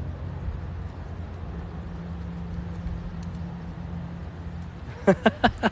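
Low, gusty rumble of wind buffeting a phone's microphone. Near the end, a short loud burst of a man's voice.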